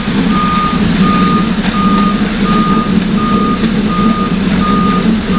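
Concrete mixer truck's backup alarm beeping at a steady pitch, about every three-quarters of a second, over the truck's engine running.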